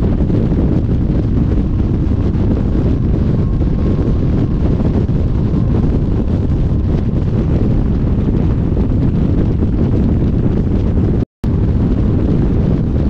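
Wind buffeting the microphone, a loud, steady low rush. It is broken once near the end by a brief gap of silence.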